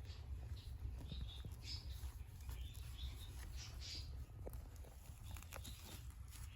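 Faint, irregular scratching and rustling with light ticks, from tortoiseshell kittens' paws and claws as they play silently on their bedding, over a steady low hum.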